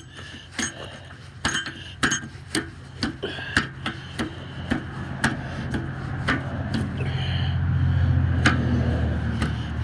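Irregular metallic clinks and knocks as steel caps and bolts on a crawler's dozer frame are worked into place by hand, the parts not seating easily. A low steady hum comes up under them about seven seconds in and fades near the end.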